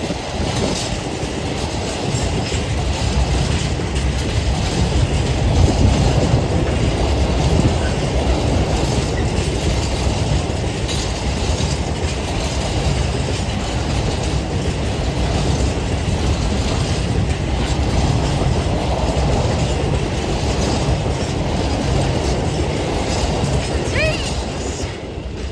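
A freight train hauled by a Class 66 diesel locomotive rolling past, its wagons rumbling and clattering along the rails in a steady loud din. The noise fades away near the end as the train clears.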